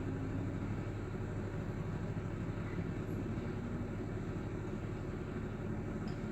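Oven fan running steadily: a constant whirring rush over a low motor hum.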